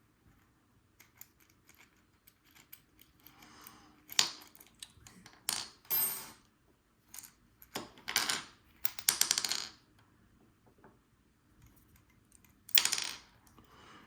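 Small metal parts and tools clicking and clinking as a Paclock 90A Pro padlock is taken apart, with a few louder ringing metallic clinks about four, six, eight to nine and thirteen seconds in.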